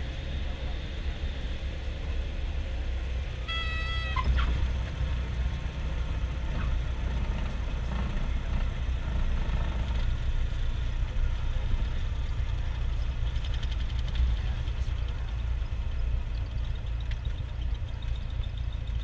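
Cessna 172's piston engine and propeller running steadily, a low drone with wind and rumble heard from inside the cabin. A brief high tone sounds about four seconds in.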